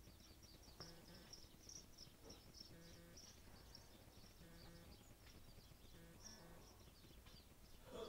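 Faint, rapid high-pitched chirping and twittering of small songbirds gathered at the feeders, many short notes in a steady scatter.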